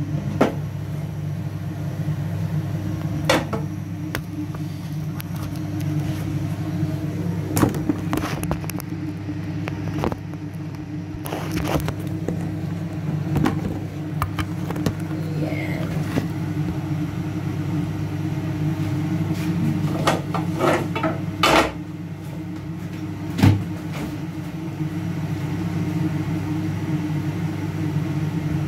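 Steady low electrical hum of a running kitchen appliance, with scattered knocks and clinks of cookware and utensils, about a dozen, the loudest near the end.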